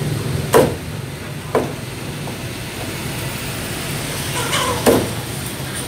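Meat cleaver chopping into a raw chicken on a thick round wooden chopping block: three sharp single chops, about half a second in, a second after that, and near the end.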